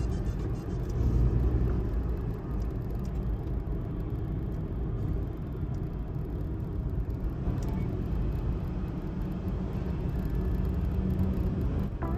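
Subaru Sambar kei vehicle driving at steady speed: low, steady rumble of its small 660 cc three-cylinder engine and tyre noise heard from inside the cabin.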